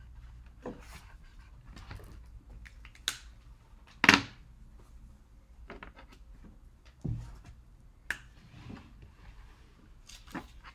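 Felt-tip markers being handled on a tabletop: scattered clicks and knocks as markers are picked up from the row and put down, the loudest about four seconds in.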